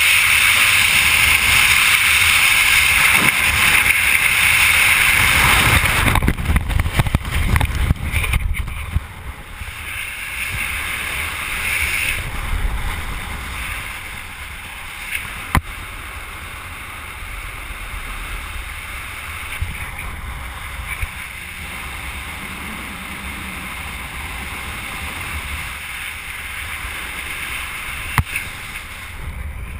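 Freefall wind rushing loudly over the microphone. About six seconds in, the parachute opens with a couple of seconds of flapping and snapping fabric. After that the wind falls to a much quieter, steady rush under the open canopy, with a few faint clicks.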